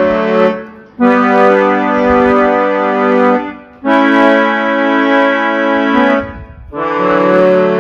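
Yamaha PSR-i500 portable keyboard playing a sequence of held chords on a sustained organ-type voice. Each chord lasts about two to three seconds, with short breaks between them.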